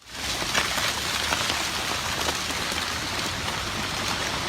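Heavy rain pouring down in a steady dense hiss with fine patter through it. It starts abruptly.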